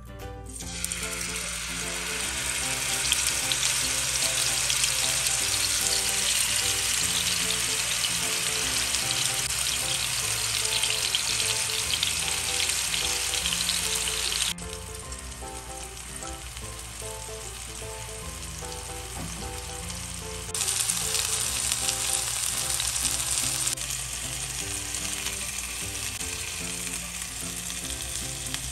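Skewers of cream-marinated chicken sizzling as they fry in hot oil in a nonstick pan; the sizzle builds just after they go in, drops abruptly about halfway, swells again for a few seconds, then settles lower. Soft background music plays underneath.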